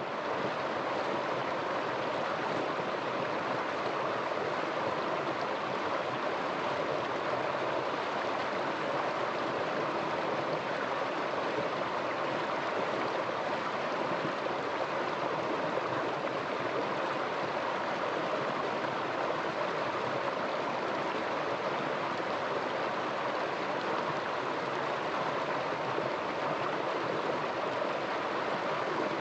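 Flowing stream water, a steady rush with no separate splashes or breaks.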